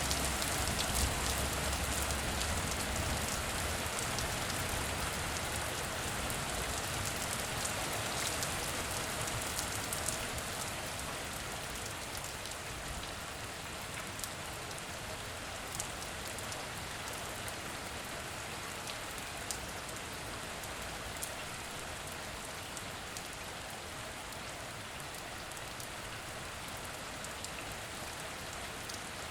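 Steady rain falling on a surface, with single close drops ticking sharply now and then. A low rumble underneath fades out in the first few seconds, and the rain eases slightly over the first half before holding steady.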